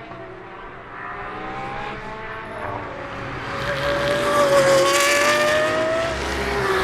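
Pagani Huayra R Evo's naturally aspirated 6.0-litre V12 running hard at high revs on track, growing louder through the middle with its pitch dipping and climbing again. Near the end the pitch drops sharply.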